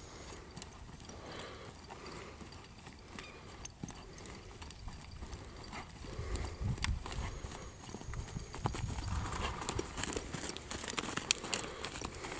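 An American Quarter Horse mare's hooves thudding on soft arena dirt as she is ridden at a steady gait. The hoofbeats get louder about six seconds in.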